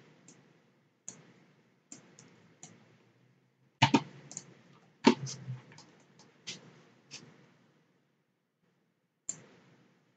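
Irregular computer mouse clicks, a dozen or so scattered short clicks, two of them louder about four and five seconds in.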